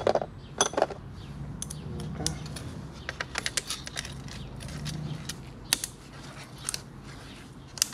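Metal hand tools clicking and clinking on the bolts of a scooter's variator cover as they are worked loose, with a quick run of clicks about three and a half seconds in.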